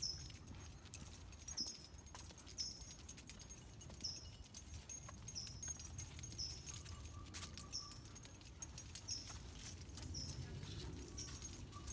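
Faint jingling and clinking of a dog's leash and collar hardware while walking, over low handling rumble. A short, high chirp repeats about once a second throughout.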